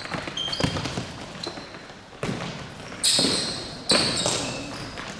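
Futsal ball kicked and bouncing on a hard sports hall floor, several sharp knocks with a hall echo, mixed with short high squeaks of players' shoes on the court.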